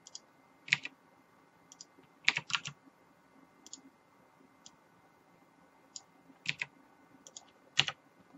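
Computer keyboard keys being tapped: scattered single clicks and quick runs of two or three keystrokes at an irregular pace.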